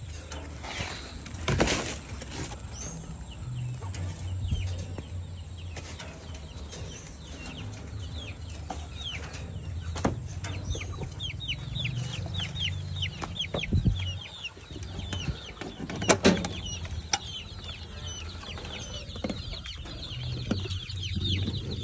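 A brood of young KUB village chickens peeping: many short, falling, high peeps in quick succession, busiest midway. A few sharp knocks break in, the loudest about two-thirds of the way through.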